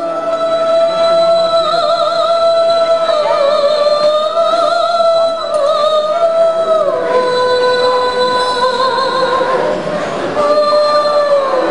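A woman sings long, held notes with vibrato to the accompaniment of a traditional Chinese ensemble of plucked and bowed strings. Her melody steps down in pitch about seven seconds in and again near the end.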